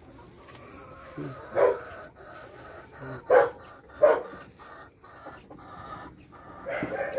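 Laying hens vocalising at the nest boxes: a drawn-out clucking call runs on, broken by three short, louder calls about a second and a half, three and a half and four seconds in.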